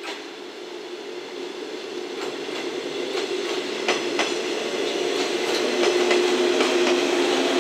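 JNR 117 series electric multiple unit running along the platform past the camera, its running noise growing steadily louder as the cars come close. The wheels click sharply and irregularly over rail joints, and a steady low hum strengthens near the end.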